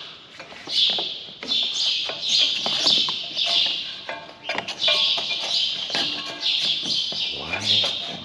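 Birds chirping over and over, a short bright call every half second to a second, with scattered light clicks and knocks.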